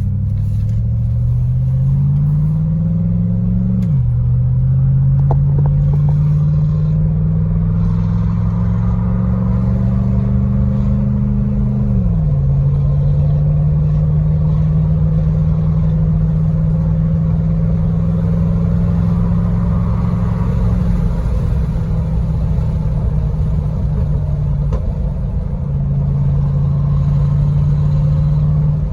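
Cadillac Escalade with a muffler delete, its loud open exhaust accelerating: the engine note climbs steadily and drops sharply at an upshift about 4 seconds in and again about 12 seconds in, then holds a steady drone while cruising.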